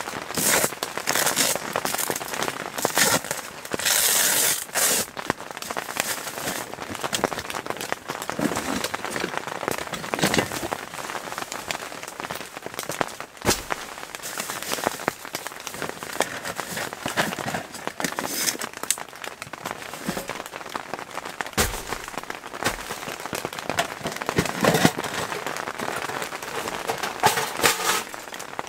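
Rain falling on the tent fabric and clear plastic window, heard from inside the tent as a dense crackle of drops. Over it come rustling and crinkling of a plastic bag and gear being handled in a wooden backpack, loudest in the first few seconds, with a few sharp knocks later on.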